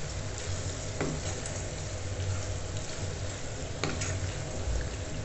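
Chicken pieces in fresh cream sizzling in a nonstick kadhai over a low gas flame as a wooden spatula stirs them, with two sharp knocks of the spatula against the pan, about a second in and again near four seconds.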